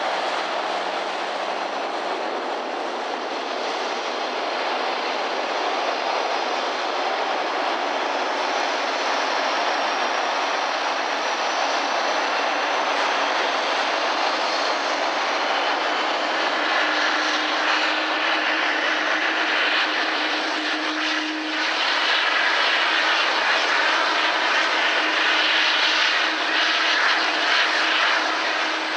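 Jet airliner engines running: a steady rushing noise with a thin high whine that slowly rises in pitch over the first half, joined by a low steady hum a little past halfway.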